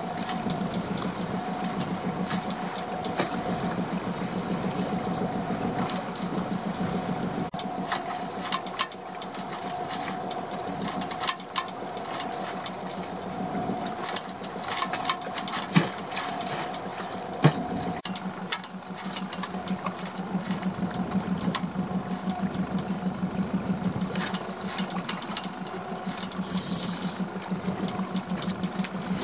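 Small boat's outboard engine idling with a steady, fast, even pulsing. Scattered light clicks and knocks sound over it.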